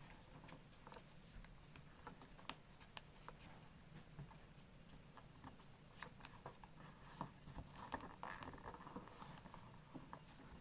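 Faint rustling and soft ticks of a sheet of origami paper being folded and creased by hand, a little busier about two-thirds of the way through.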